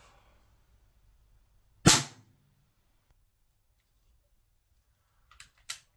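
A single sharp pop of CO2 gas discharging as a Schofield replica CO2 revolver is fired empty, with no shells or pellets loaded, about two seconds in. A few faint clicks follow near the end.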